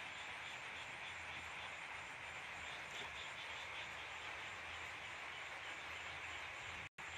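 Steady background hiss with a faint low hum and a faint, evenly repeating high chirp. The sound cuts out completely for an instant near the end.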